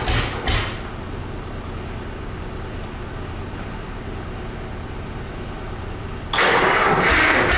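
A cold GM 1-71 single-cylinder two-stroke diesel being cranked over, chuffing rhythmically at about three compression strokes a second, without ether to help it fire. The cranking stops about half a second in, leaving a low steady rumble, and starts again about six seconds in.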